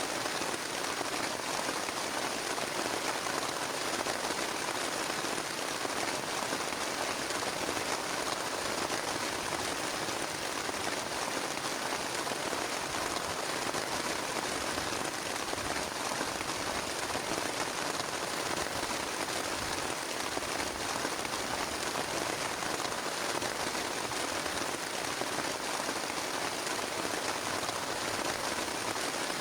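Heavy rain falling steadily on a plastic tarp, a dense, even hiss of many close drop hits with no let-up and no thunder.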